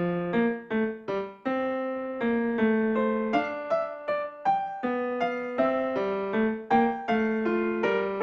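Piano music starting out of silence: a gentle melody of single notes struck at an even, unhurried pace, a few notes a second.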